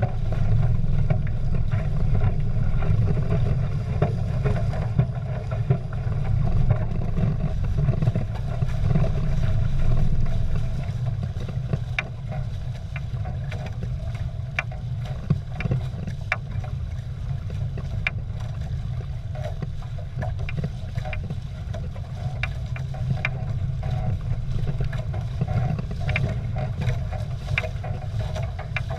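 Water rushing and splashing against a Prindle 16 catamaran's hulls under sail, over a steady low rumble, with short sharp slaps and spray ticks that come more often in the second half. The rumble is louder in the first ten seconds or so.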